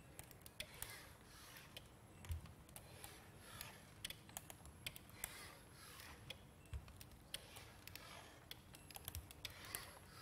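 Quiet, irregular clicks and taps from an Ekso powered exoskeleton and its forearm crutches as the wearer steps, over faint room tone.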